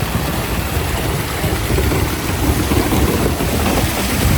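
Rain with wind noise on the microphone: a loud, steady rushing hiss with a gusty low rumble underneath.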